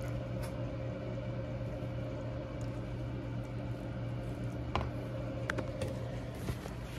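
Steady low mechanical hum in a small room, with a few light clicks of a fork against a takeout food container about five seconds in.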